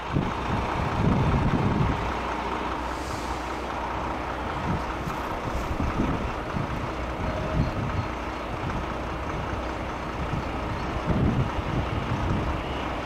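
Gusts of wind buffeting the microphone over the steady, distant running of an electric freight train approaching on the line.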